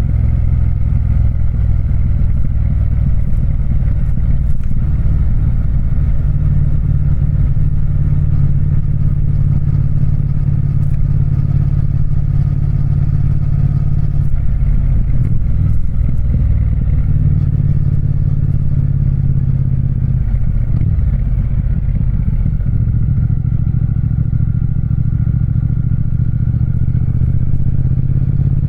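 Triumph Speed Twin's parallel-twin engine running steadily, its note shifting briefly about two-thirds of the way through.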